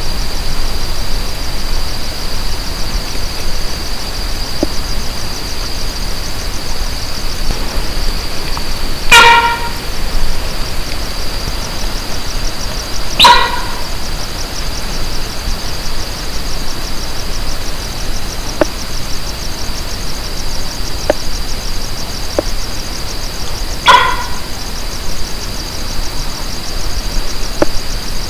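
A steady, high-pitched chirring of night insects, with an animal giving a short, sharp pitched call three times at wide intervals. The calls are from an animal the camper cannot identify.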